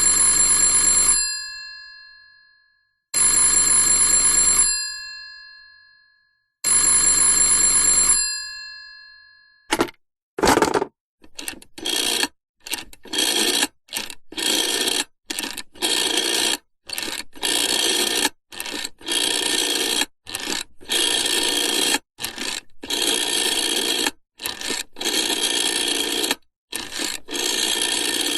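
A vintage telephone's mechanical bell rings three times, each ring about a second and a half long and then dying away. After that come many short, noisy mechanical bursts in quick succession, the rasp of a rotary dial being wound round and spinning back, digit after digit.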